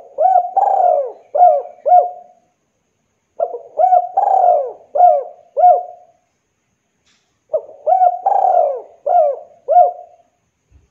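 Spotted dove (Javanese derkuku) singing its cooing song three times over. Each phrase lasts about two and a half seconds: two short coos, a longer coo, then two short clipped coos.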